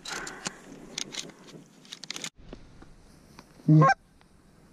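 Rustling and clicking of dry grass and blind cover for about two seconds, then, after an abrupt cut, a single short, loud goose honk near the end.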